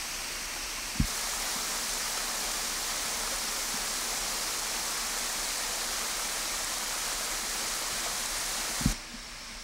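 Steady rushing hiss with its energy mostly high up, the kind of sound running water or rain makes. A sharp click comes about a second in as the shot cuts, and another comes near the end, after which the hiss drops away.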